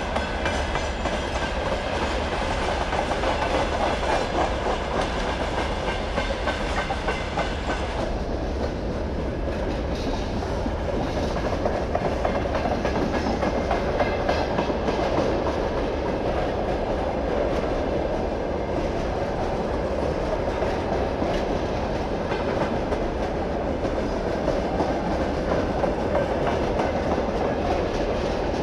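Freight train passing close by at speed, its wagons rolling past in a steady, loud rush of wheel-on-rail noise. First open gondola wagons go by, then tank cars; the higher hiss thins a little about eight seconds in.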